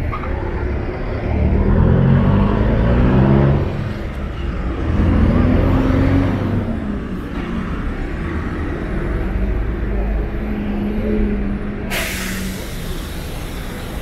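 Street traffic: engines of cars and heavy vehicles running and pulling away, their pitch rising and falling. Near the end, a sudden hiss of air lasts about two seconds and cuts off sharply, typical of a bus or truck air brake.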